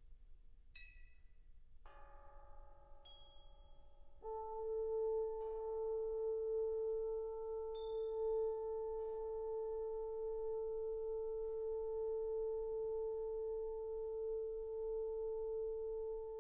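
Orchestra playing sparse contemporary music: a few isolated high, bell-like pings and a soft chord of held notes entering about two seconds in, then about four seconds in a loud, steady, almost pure held tone with a fainter note an octave above it, sustained to the end.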